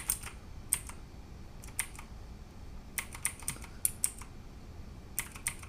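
Clicky blue-type mechanical key switches (Outemu Cherry MX clones) on a Drevo 84-key keyboard, pressed one at a time and in short bunches of two or three with pauses between, as function-key combinations are tried.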